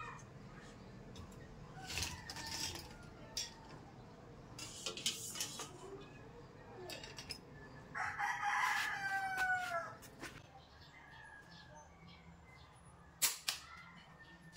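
A rooster crows once, a call of about two seconds that drops in pitch at its end, about eight seconds in. Earlier there are a few brief clatters, and near the end there is a single sharp knock.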